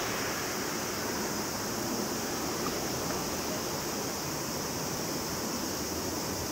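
Steady jet engine noise from a Boeing 737-800BCF's CFM56-7B turbofans as the freighter climbs away after takeoff.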